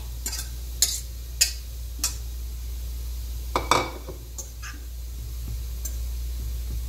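Metal fork tapping and scraping against a ceramic frying pan as mashed potatoes are pressed and stirred in sizzling butter. Several sharp clicks come in the first two seconds, and a louder knock comes just before four seconds in.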